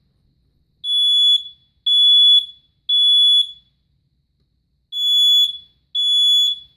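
Family Guard FG200 battery smoke alarm sounding under its test button: a loud, high-pitched beep three times, a pause, then the next group of beeps starting. This is the standard three-beep (temporal-3) evacuation pattern.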